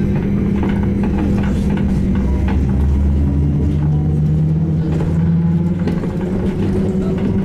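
SVARZ-MAZ-6235.00 trolleybus riding, heard from inside: a steady electrical hum with a lower motor tone that rises in pitch for about three seconds from a few seconds in, as the trolleybus speeds up, then fades. Scattered rattles and knocks come from the body over the road.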